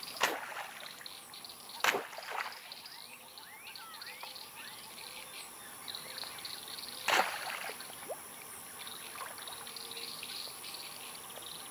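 Riverside ambience of birds chirping and water trickling, broken three times by a brief sharp noise.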